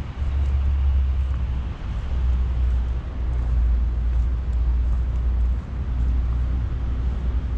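Outdoor city ambience during a snowfall: a steady low rumble with a few brief dips, under a faint hiss.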